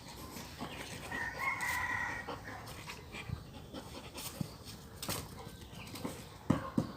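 A rooster crows once, about a second in, with a drawn-out pitched call. Scattered light knocks and scuffs follow.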